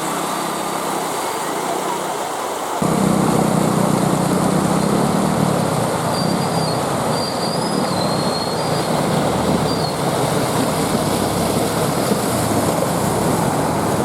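Motorcycles running through flood water amid street traffic noise, with a sudden step up in loudness about three seconds in.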